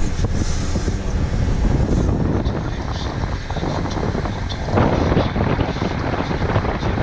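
Wind buffeting the microphone of a camera riding on a moving vehicle, over a steady low road rumble, with a louder gust about five seconds in.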